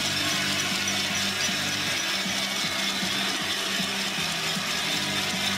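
Spectators along a ski course making steady crowd noise, thick with many small rattling clicks, over a low steady hum.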